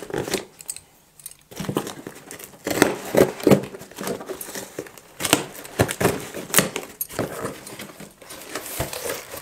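Packing tape being ripped off a cardboard parcel by hand, with the box's cardboard flaps scraping and rustling in short, irregular bursts.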